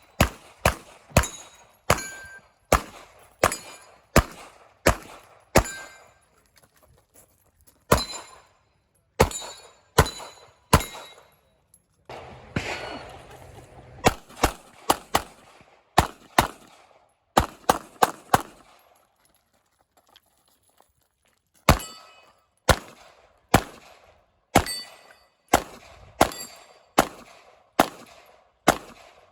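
Glock 26 9mm pistol firing about thirty shots in rapid succession, mostly half a second to a second apart, in four strings broken by pauses of one to three seconds.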